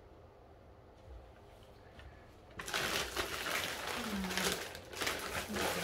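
Plastic packaging rustling and crinkling as a package is handled and opened. It starts suddenly about two and a half seconds in after a quiet stretch, with a couple of brief murmurs of a woman's voice over it.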